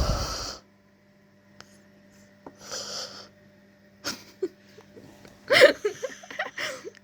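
Yawning: a loud breathy exhale at the very start, a softer breathy one about three seconds in, then small mouth clicks and short vocal sounds near the end.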